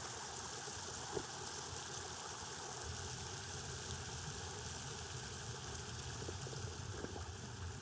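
Mountain river water rushing steadily, a constant hiss with a low rumble beneath, with one small click about a second in.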